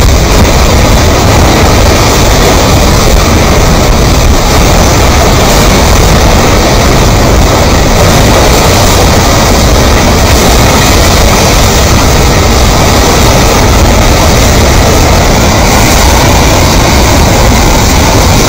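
Debris flow of mud and stones moving down a gully, a steady, loud rumble of churning slurry and rolling rock.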